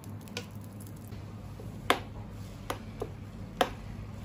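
Oil being brushed onto the nonstick plate of an electric baking pan, and a round of dough laid in and pressed flat by hand: a handful of short sharp taps and soft squishy sounds over a steady low hum.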